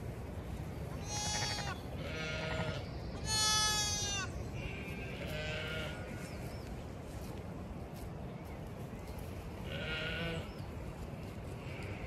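Newborn Zwartbles lambs bleating: about five short, high-pitched calls, the loudest about three and a half seconds in.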